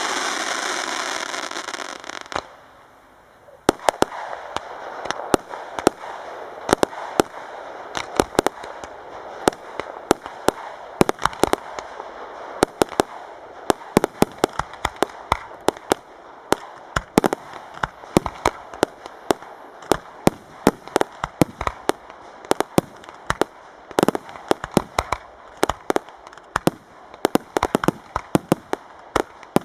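Fireworks display: a dense hissing crackle fades out over the first couple of seconds. After a brief lull, a long run of sharp, irregular cracks and bangs follows, several a second, over a steady crackle.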